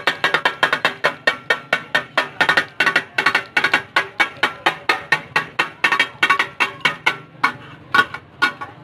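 Two flat metal spatula blades chopping food on a large flat iron griddle (tawa), clanging against the metal in a fast, even rhythm of about six strikes a second. The strikes thin out to a few scattered hits after about seven seconds and stop shortly before the end.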